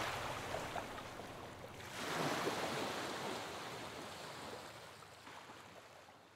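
Soft water soundscape, a steady rushing like surf or a stream, that swells about two seconds in and then fades out.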